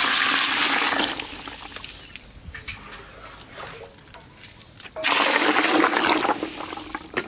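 A stream of running water pours into a plastic bucket of river snails, filling it to wash the snails. It runs loudly until about a second in, splashes more quietly through the middle, and pours loudly again from about five seconds in before tapering off.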